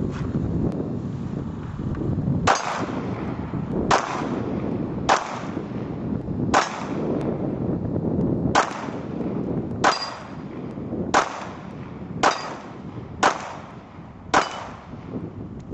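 Pistol shots fired one at a time during an IPSC stage, about ten sharp reports spaced a second or two apart, over a steady low rumble.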